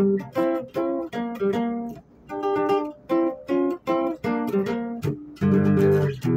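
Music played on a plucked string instrument: a run of single picked notes and chords, each struck sharply and dying away, with fuller strummed chords near the end.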